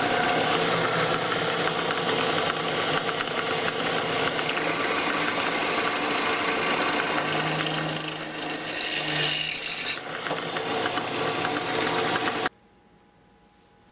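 Drill press running, its bit cutting through a metal battery clamp strap held against a wooden jig. The motor hums steadily under the cutting noise, and the drilling stops abruptly a little over a second before the end.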